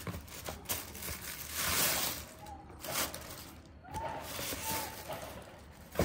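Tissue paper rustling and a cardboard shoebox being handled as a pair of sneakers is unwrapped and lifted out, with small clicks and a sharp knock near the end.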